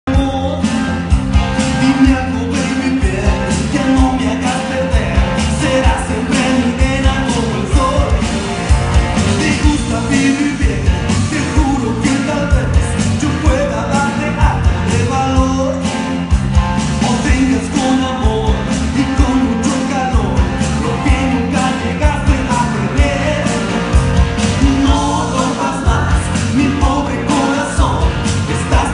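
Loud music with a singing voice over a steady, driving beat with heavy bass.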